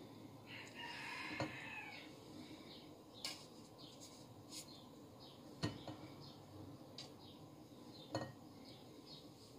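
A few light taps and clinks of kitchenware on a metal pan, as halved boiled eggs are set into an aluminium ring mould. Faint bird chirps sound in the background.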